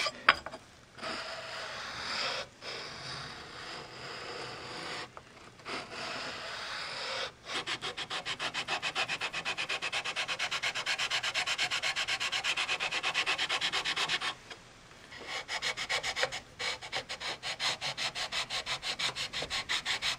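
Fine side of a flat Norton oil stone, wet with kerosene, rubbed back and forth over the gasket face of a planer's gearbox casting to hone off varnish. The strokes are short and quick, with a few brief pauses.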